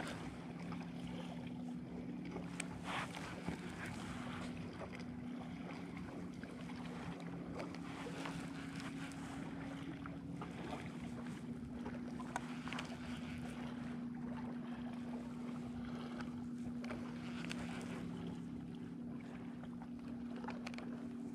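Wind and light water noise around a kayak, under a steady low hum from a distant motorboat engine, with a few faint clicks.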